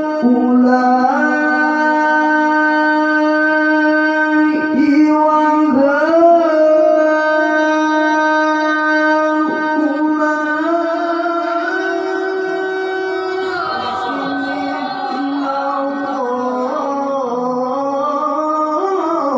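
A man chanting the Qur'an (tilawah) into a microphone: long held notes with ornamented melodic turns and glides, the pitch shifting between phrases.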